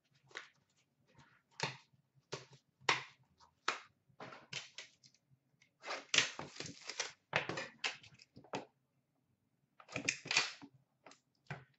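Hands handling and opening a box of hockey trading cards: irregular clicks and taps of cardboard packaging, with longer stretches of rustling about halfway through and again near the end.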